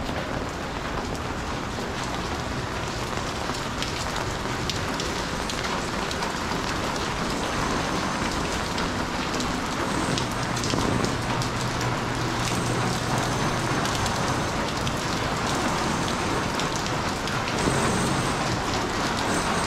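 Steady rain falling, an even hiss. A faint low hum comes in about halfway through, and a pitched mechanical sound rises near the end.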